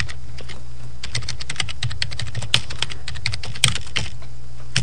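Typing on a computer keyboard: quick, irregular runs of key clicks as a web address is entered, with a few sharper clicks among them, over a steady low hum.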